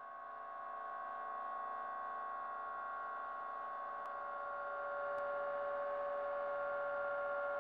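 A steady drone of several held tones fades in at the start and swells slightly about five seconds in, with two faint ticks in the middle: an eerie ambient underscore.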